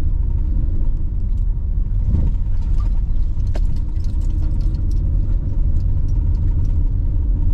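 Steady low engine and road rumble heard from inside the cab of a home-built truck camper on the move, with scattered light clicks and rattles.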